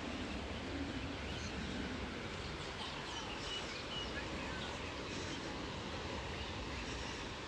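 Steady outdoor background noise with a low rumble, and faint short bird chirps from about one and a half to four and a half seconds in.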